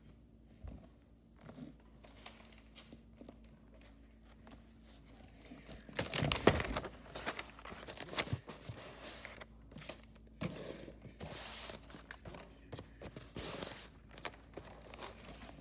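Christmas wrapping paper being handled, crinkling and rustling in bursts; it starts about six seconds in after a quiet start, and the loudest crinkles come right at the start of the handling.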